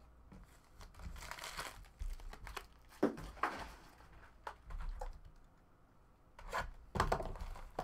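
Crinkling of plastic pack wrappers and trading-card boxes being handled, in short rustling bursts with a few soft knocks as boxes are moved on the table.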